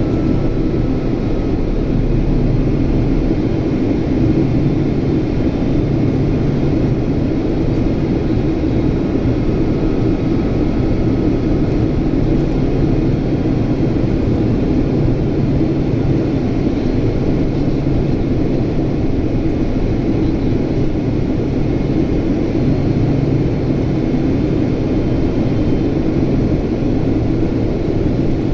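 Boeing 767's General Electric CF6 turbofan engines heard from inside the cabin in flight: a steady drone of engine and airflow noise.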